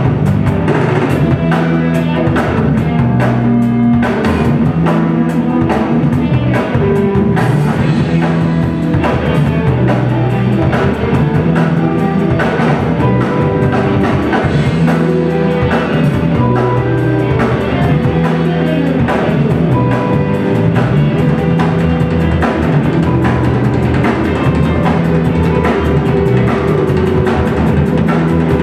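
Rock band playing live: a drum kit keeps a steady, busy beat under guitar and sustained low bass notes.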